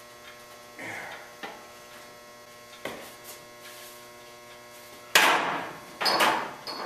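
Steady electrical mains hum with a couple of faint clicks, then a loud noisy burst about five seconds in and another just after six seconds.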